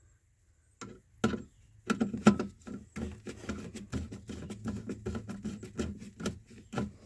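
Rapid, irregular clicks, taps and scratchy rattles of wires and metal parts being handled inside an old 240-volt safety switch box, starting about a second in.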